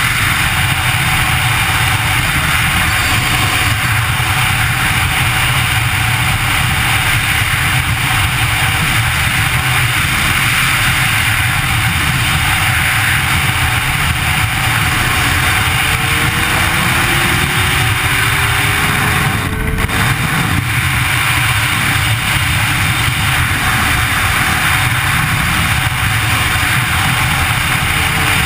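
Steady wind and road noise at riding speed on a Kawasaki Concours 1400 sport-tourer, with its inline-four engine faintly beneath and its pitch climbing slowly once partway through.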